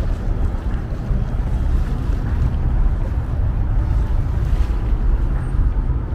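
Wind buffeting an outdoor microphone: a steady, flickering low rumble with a broad hiss over it and no distinct events.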